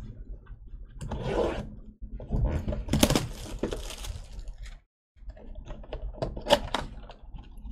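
Trading cards and foil packs being handled: irregular scrapes, rustling and light clicks, with a brief dropout about five seconds in.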